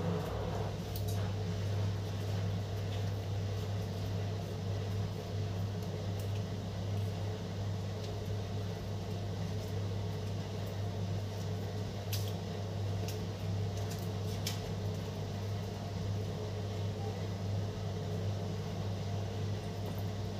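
Steady low electric hum of a running kitchen appliance motor, which cuts off suddenly near the end. Light crinkling clicks of pandan leaves being folded come through it a few times.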